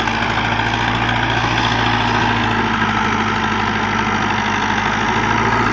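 Tractor diesel engine, a Mahindra DI 575 fitted in an old International tractor, running steadily under load while it pulls a seven-foot rotavator through the soil.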